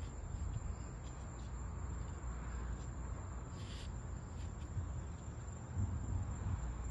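Wind buffeting a phone's microphone outdoors during a thunderstorm: an uneven low rumble that swells a little near the end, with a brief faint hiss about halfway through.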